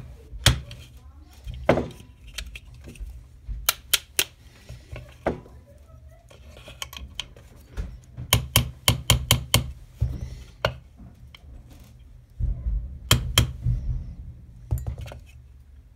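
Small brass-headed hammer tapping pins into a polymer Glock-pattern pistol frame while the trigger parts are reinstalled: sharp taps in irregular runs, with quick strings of taps about halfway through and again near the end.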